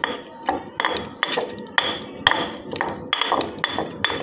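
Pestle pounding in a stone mortar, about two strikes a second, each with a short clink, mashing grilled eggplant together with fish sauce and herbs.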